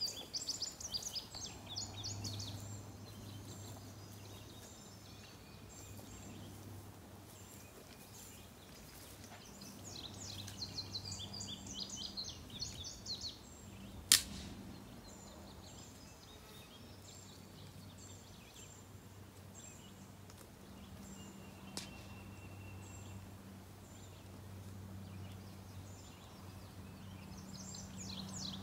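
Birds chirping in repeated bursts over a low steady hum, with one sharp, loud crack about halfway through: a tree branch snapped by hand. A fainter click follows some seconds later.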